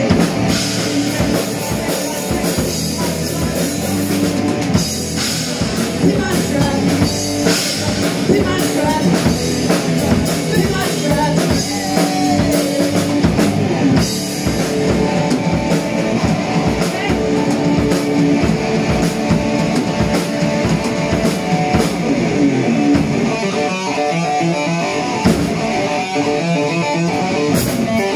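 Live rock band playing: electric guitars through amplifiers over a drum kit, loud and steady.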